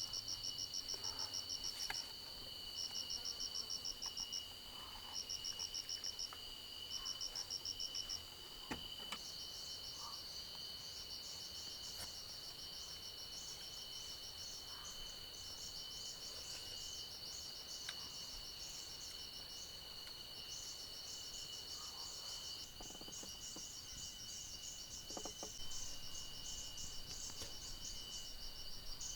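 Rainforest insect chorus: two steady high-pitched drones under a fast pulsing trill that comes in bursts of about a second, four times over the first eight seconds, then gives way to denser, more continuous high chirping.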